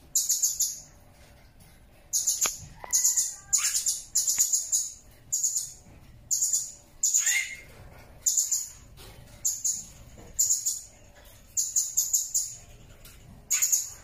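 Blue-crowned hanging parrot (serindit) calling: short, very high-pitched buzzy chirps in quick bursts about once a second, with a few lower falling notes about halfway through.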